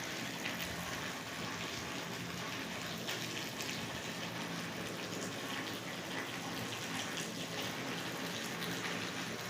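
Light rain falling steadily, with water running off the roof.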